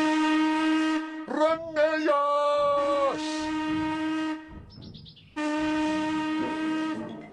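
Steam locomotive whistle blowing long, steady blasts, one of them at a higher pitch, broken by a short shout about a second and a half in and by a brief pause a little after the middle.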